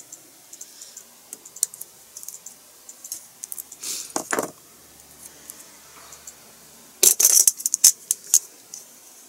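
Small hard plastic model-kit parts clicking and rattling as they are handled and sorted by hand, with scattered light clicks and a dense run of sharp clicks about seven seconds in.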